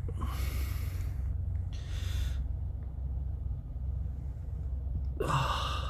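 A man breathing out heavily twice, then a short low groan near the end, over a steady low hum.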